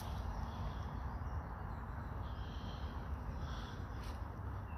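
Outdoor woodland ambience: a steady low rumble, with faint distant bird calls between about two and four seconds in.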